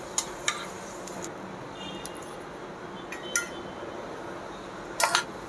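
Steel kitchen tongs clicking and clinking against metal cookware while papad are fried, a few sharp clinks with brief ringing, the loudest cluster near the end, over a steady low hiss.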